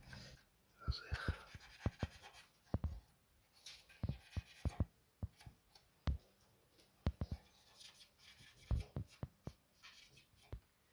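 Cotton swab rubbing and scraping over the inside of a cassette deck's chassis to wipe off dust, with scattered light taps and knocks from hands handling the deck.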